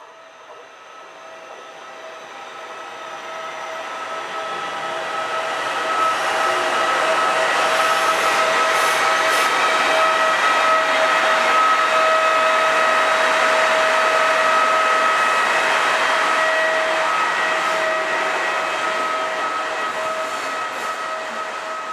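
Regional passenger train running into a station platform, growing louder over the first several seconds as it approaches, then easing off near the end as it comes to a stand. A steady whine of several high tones runs over its rumble throughout.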